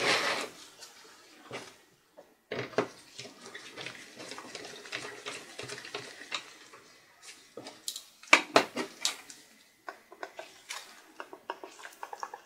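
Small screwdriver and gloved hands working on a ThinkPad X230's touchpad bracket and plastic palm rest: irregular small clicks, taps and light rattles of screws and plastic parts, with a cluster of sharper clicks about two-thirds of the way through.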